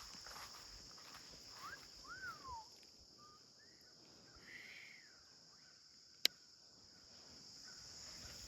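Steady, faint high-pitched insect chorus of crickets, with a few short rising-and-falling bird whistles about two seconds in and a single sharp click about six seconds in.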